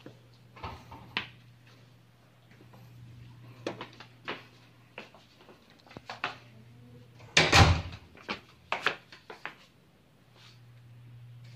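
Clicks and knocks of a hotel room door and its latch being handled, the loudest knock about seven and a half seconds in, over a low steady hum.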